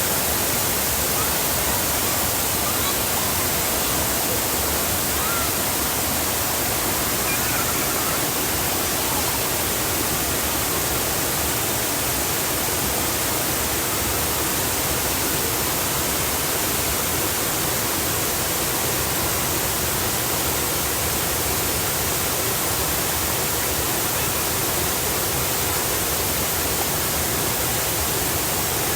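Waterfall: falling water rushing in a steady, even roar that does not change.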